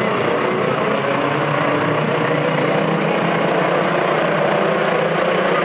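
A field of pickup race trucks' engines running at racing speed around a short-track oval. Many engines overlap into a loud, steady din of mixed pitches.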